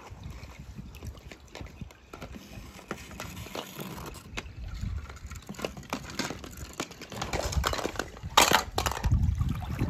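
Toy cars being handled in water: small clicks and knocks with water sloshing, and a short, louder burst of noise about eight and a half seconds in.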